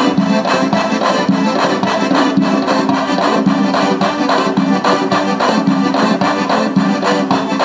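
Fast Georgian folk dance music for the Rachuli dance, played with a quick, steady beat.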